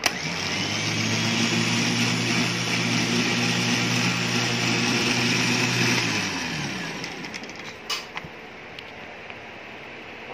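Hi-Winch 9500STD electric winch starting with a click and spinning up, its motor and geared drum running steadily with no load on the cable, then winding down about six seconds in. A few light clicks follow.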